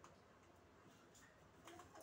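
Near silence: faint room tone with a few soft ticks, the clearest near the end.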